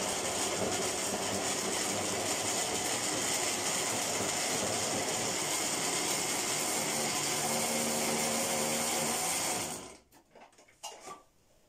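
Electric countertop blender running steadily as it purées a sauce, then switched off suddenly about ten seconds in; a few faint knocks follow.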